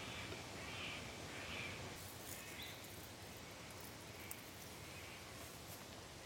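A series of short animal calls, about one every 0.7 seconds at first, then fainter and sparser, over a quiet outdoor background with a few light clicks.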